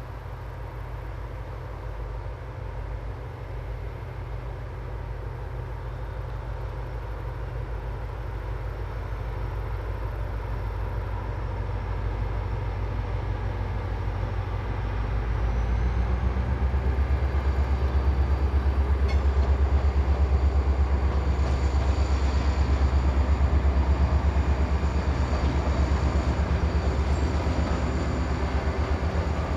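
A train drawing closer and running past with a heavy low rumble. It grows steadily louder for about the first half, then stays at its loudest.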